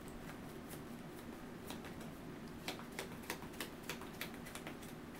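Irregular light clicks and taps of trading cards being handled on a table, several a second in the second half, over a faint steady hum.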